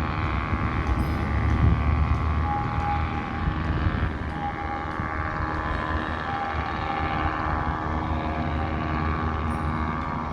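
Fishing boat's engine running steadily under way, a continuous low rumble.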